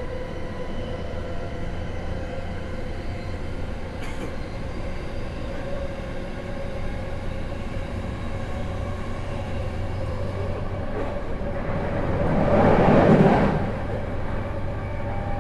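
Inside a JR East E233-1000 series electric commuter train running between stations: a steady rumble of wheels on the rails with a faint even motor hum. About twelve seconds in, a brief loud rush of noise swells and fades.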